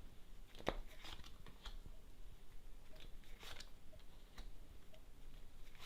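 Fortune-telling cards being handled and laid on a table: a few faint, irregular taps and clicks.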